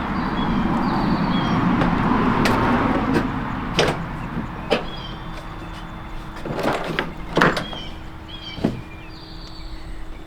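A rushing noise for the first few seconds, then a series of about six separate knocks and clunks as a person climbs the newly installed foldout steps up into a box truck.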